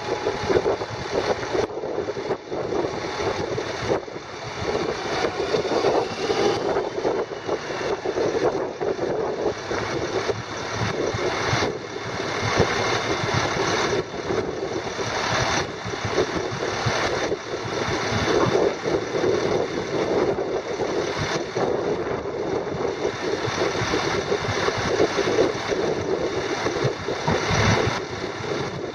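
Dump truck's International DT530 8.7 L inline-six diesel idling steadily while the raised dump bed is lowered.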